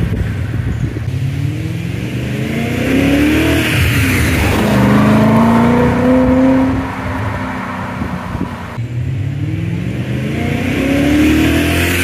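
BMW E39 M5's 4.9-litre V8 exhaust as the car accelerates away, the revs climbing in three rising pulls with drops in between.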